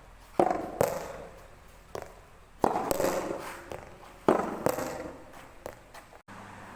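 Soft tennis rubber balls being struck by rackets and bouncing on the court: about six sharp pops at uneven intervals, two of them half a second apart. Near the end the pops stop and a steady low hum takes over.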